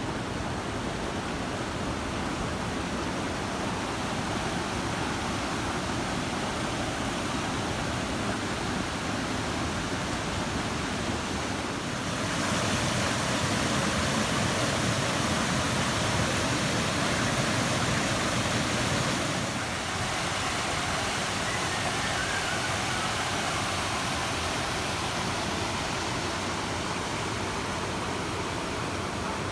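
Steady rush of flowing and falling water. It turns abruptly louder about twelve seconds in and drops back just as suddenly several seconds later.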